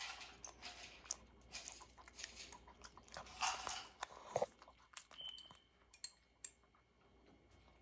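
Shih Tzu puppy chewing and crunching food, a run of irregular crunches and small clicks that thins out after about five seconds.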